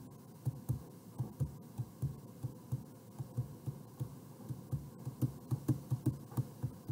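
Stylus tapping and dragging on a touchscreen while a word is handwritten, heard as an irregular series of short, dull low knocks, about three or four a second.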